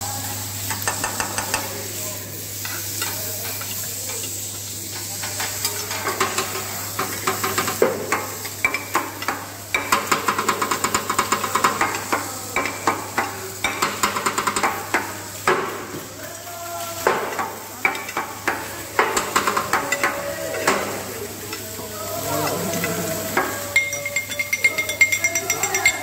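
Cubes of meat sizzling on a flat-top steel griddle while a metal spatula scrapes and clacks against the hot plate in quick runs of strikes.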